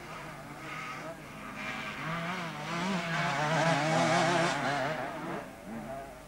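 CZ two-stroke motocross motorcycle engine running hard as the bike passes, its note wavering up and down with the throttle; it grows loudest around the middle and fades near the end.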